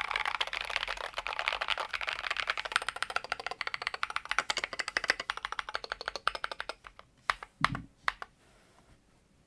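Fast typing on a Tokyo60 mechanical keyboard with Drop Invyr Holy Panda tactile switches: a dense, rapid run of keystrokes for about six and a half seconds, thinning to a few scattered presses and one heavier thump, then stopping.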